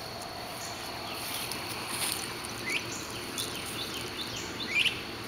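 Outdoor garden ambience: insects droning in a steady high tone, with a few short bird chirps scattered through it.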